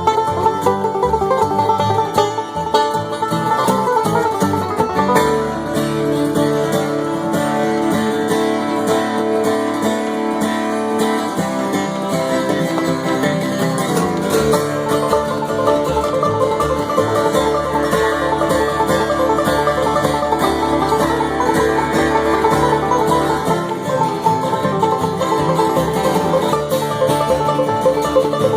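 Bluegrass band playing an instrumental passage, with fast banjo picking over guitar.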